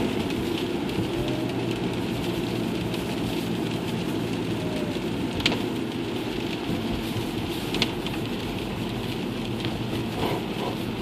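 Audi A4's turbocharged engine running with a steady drone and a rushing noise, with two sharp clicks, one about halfway through and one a couple of seconds later.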